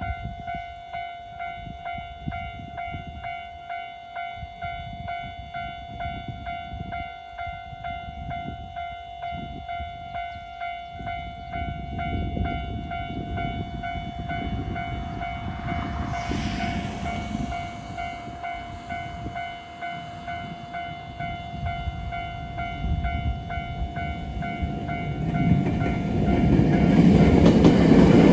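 Nagano Electric Railway level-crossing alarm bell ringing in a fast, even repeating pattern while the crossing is closed. An approaching train's rumble grows louder over the last few seconds, with a brief hissing burst about halfway through.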